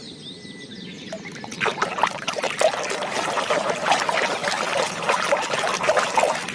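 Water splashing and trickling as a muddy plastic toy animal is washed by hand in a container of water, starting about a second and a half in.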